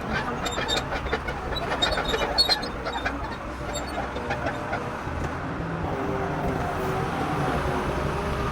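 Heavy machinery running with a steady low rumble, with light metallic clinks over the first few seconds.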